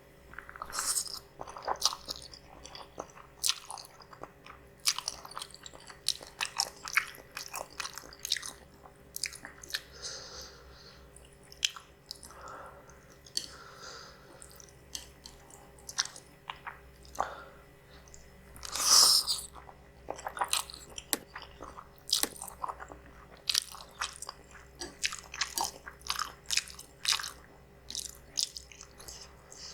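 Close-miked eating of spicy instant noodles: steady chewing with many small wet mouth clicks and bites, and a few longer hissy sounds. One louder, longer noisy sound comes about two-thirds of the way through.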